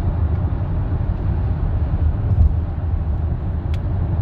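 Steady road and engine rumble inside a moving car's cabin, with a faint click near the end.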